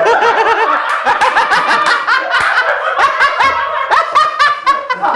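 Several people laughing hard at once, their laughs overlapping and loud.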